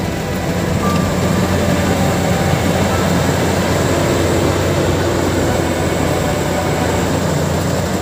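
Bimo Extreme crawler rice combine harvester running steadily under load while cutting and threshing standing rice: a constant low mechanical drone.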